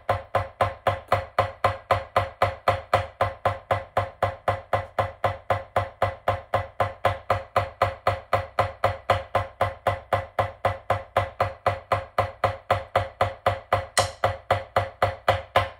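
Drumsticks playing even single wrist strokes on a drum, about three to four a second, in the "8 on a hand" warm-up: eight strokes with one hand, eight with the other, then sixteen. One stroke near the end rings brighter and sharper than the rest.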